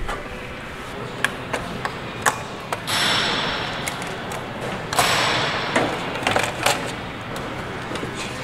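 Sharp metallic clicks and knocks from the casing of a wartime bomb computer as its cover fastenings are worked and the metal cover is taken off. There are two longer scraping rushes, about three and five seconds in, as the cover moves against the case.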